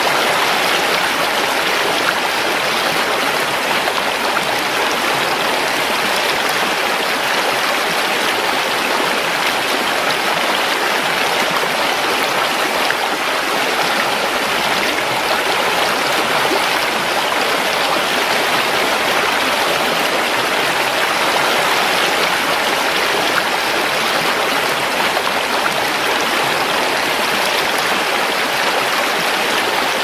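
Stream or brook running steadily, an even, unbroken babble of water.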